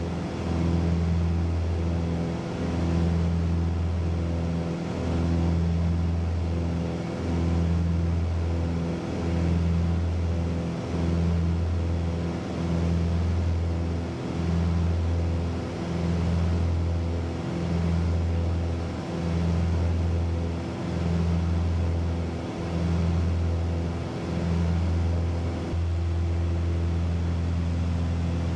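Aircraft engine drone heard inside the cabin: a steady low hum that swells and dips about every two seconds, then evens out near the end.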